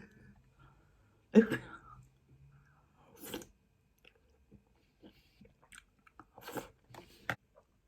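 Close-miked chewing and mouth sounds of a person eating noodles with prawns and vegetables, in scattered short bursts and wet clicks, with a brief vocal sound about a second and a half in.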